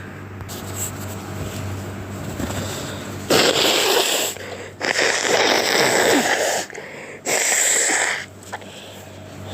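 A sick person's sneezes and forceful breaths through the nose. After about three seconds of quiet hum, a sudden loud rush of breath comes, then a longer one around five seconds and a short one near seven seconds.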